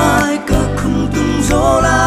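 A male voice singing a song to a live band: strummed acoustic guitar, electric bass guitar and drums with cymbal strokes. A sung note is held steadily through the last half second.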